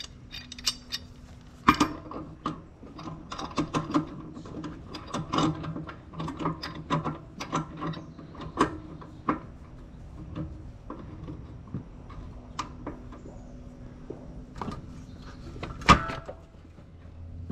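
Steel tools and disc harrow parts clanking and clicking irregularly as they are worked by hand, over a low steady hum, with one loud metal strike about a second and a half before the end.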